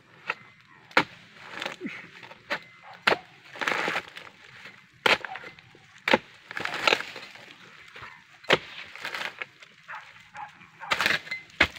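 A steel harvesting chisel (dodos) on a long pole, chopping into the fibrous frond bases of an oil palm. There are about a dozen sharp strikes at an irregular pace of roughly one a second, with a couple of longer, noisier stretches of splitting wood.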